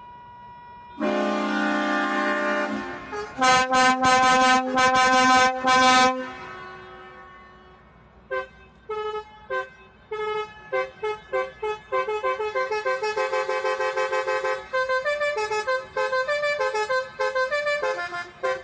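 Basuri multi-tone musical car horn sounding a long held chord, then a run of rapid loud blasts. From about eight seconds in it plays a quick tune of short notes.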